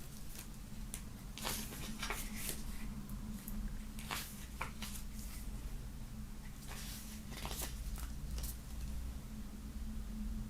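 Hands handling box-set contents: a run of soft rustles and brief scrapes of paper and cardboard, in clusters, over a steady low hum.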